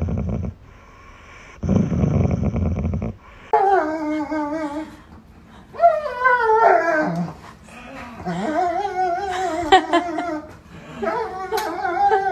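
A dog gives low, rumbling growls in two stretches while its head is rubbed, a contented grumble rather than a threat. From about three and a half seconds in, another dog whines and howls in long wavering cries, excited at someone arriving.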